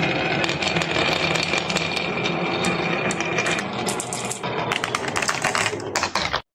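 Marbles rolling and clattering down a wooden marble run, a dense stream of clicks over a steady mechanical whir. The clicking grows thicker past the midpoint, then everything cuts off abruptly near the end.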